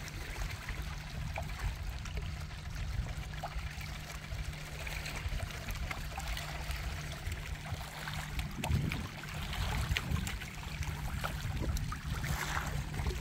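Small waves lapping and trickling against shoreline rocks, a steady wash of water with faint splashes, over a low steady rumble.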